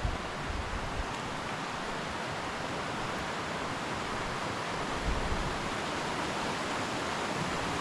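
Steady rushing of water from snowmelt waterfalls, with a few low buffets of wind on the microphone near the start and about five seconds in.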